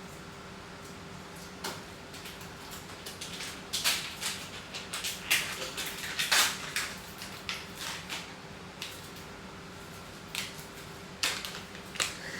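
Dishes and containers being handled: scattered clinks, clicks and clatters, busiest in the middle of the stretch, over a faint steady hum.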